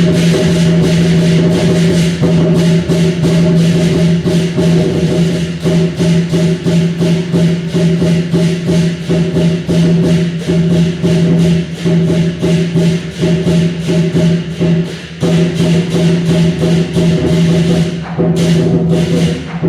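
Music with a held low note and a steady percussive beat of about three strokes a second.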